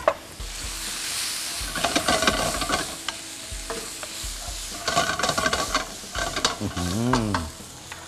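Squid rings sizzling in a hot wok with chili paste, stirred with a spatula that scrapes and knocks against the pan.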